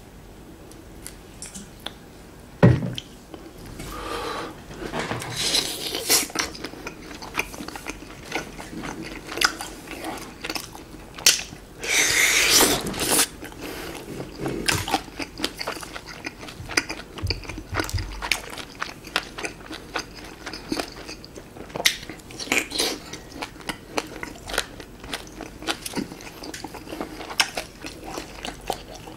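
Close-up biting and chewing of grilled chicken skewers, with many short wet mouth clicks and smacks throughout. There is a single loud sharp knock about three seconds in, and a second-long rush of noise near the middle.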